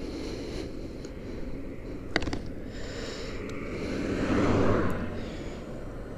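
Suzuki GSX-R1000 K7's inline-four engine idling steadily. There is a sharp click about two seconds in, and a passing car swells up and fades away around the four-to-five-second mark.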